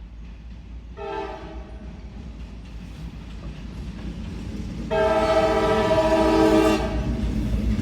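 CSX locomotive's air horn sounding a chord of several tones: a short blast about a second in, then a longer, loud blast about five seconds in. Under it runs the growing rumble of the approaching train.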